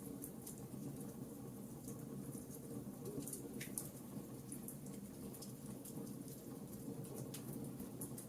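Wood fire burning in a fireplace, crackling with small irregular pops and snaps over a low steady rustle.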